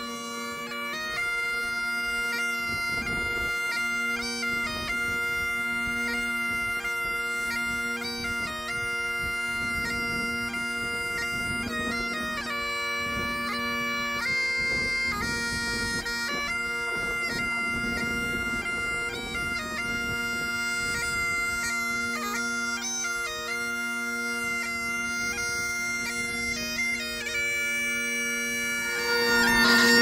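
Bagpipes playing a tune over their steady drones, growing a little louder near the end.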